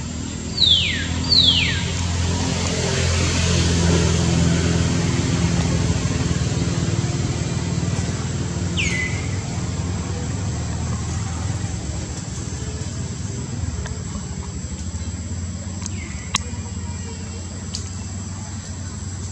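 Steady low rumble like distant road traffic, swelling a few seconds in and then easing. Over it come two quick high squeaks falling in pitch just after the start and a third near the middle.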